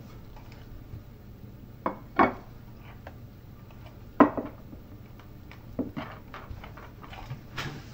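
Ceramic dishes and a cutting board being set down and moved on a kitchen counter: a handful of separate knocks and clatters, the loudest about two and four seconds in.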